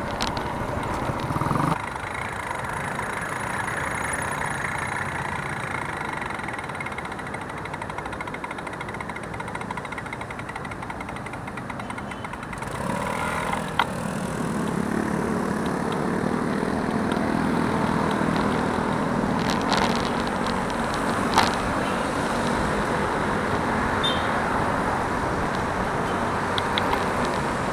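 Steady wind and road noise from riding a bicycle through city traffic, with motorcycles and cars running close by. The traffic noise grows fuller a little under halfway through, and there are a couple of brief knocks.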